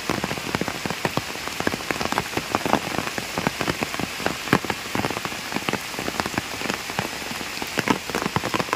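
Heavy rain falling on a pond's surface and the leaves along its bank: a steady hiss thick with many separate drop hits close by.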